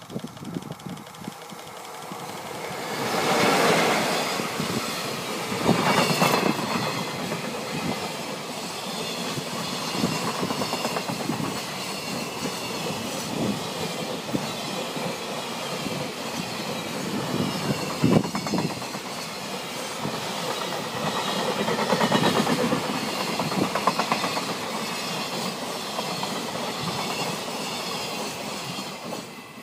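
EF66 electric locomotive and its long train of container wagons passing close by, a loud rolling rumble that swells a few seconds in as the locomotive goes by. The wagons' wheels then keep up a clickety-clack of knocks over the rail joints, fading just before the end as the last wagon passes.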